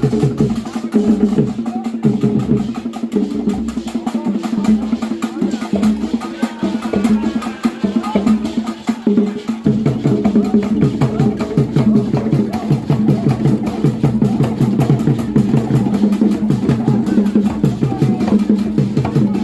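Music led by fast, steady drumming with sharp wood-block-like clacks.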